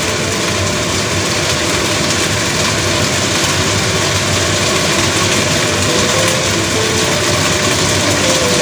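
Eggplant and minced meat sizzling steadily in a hot wok over a gas burner.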